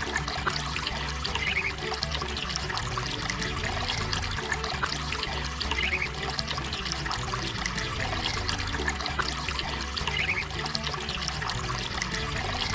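Water trickling and splashing steadily, with many small ticks through it.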